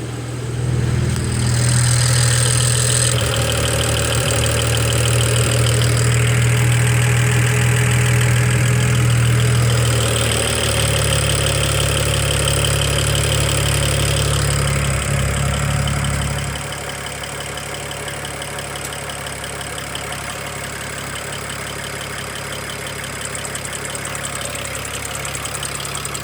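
BMW 335i turbocharged straight-six idling with a fast, even ticking ("taka, taka, taka"); the engine drone drops to a quieter idle about two-thirds of the way through. The owner cannot place the ticking and takes the uneven running for a misfire getting progressively worse.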